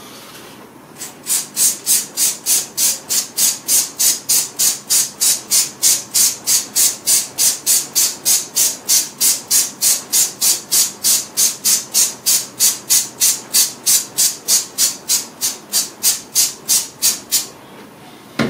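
Rhythmic hissing strokes, about three a second, as the stove's glass door is cleaned, starting about a second in and stopping shortly before the end.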